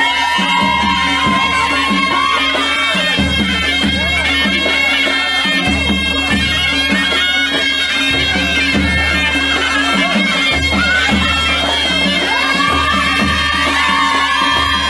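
Loud traditional music: reedy wind instruments holding drone-like tones with a wavering melody over a steady drum beat.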